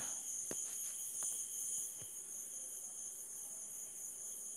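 Steady high-pitched chirring of insects in the background, with a couple of faint clicks about half a second and just over a second in.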